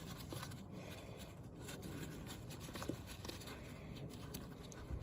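Faint, irregular small clicks and scraping as the long bolt holding the air filter on a Kawasaki KX112 dirt bike is undone.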